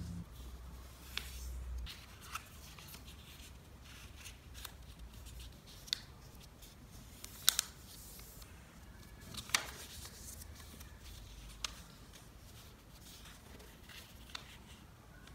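Origami paper being folded and creased by hand: soft rustling and rubbing with scattered crisp crackles of the paper, the sharpest a quick pair about halfway through.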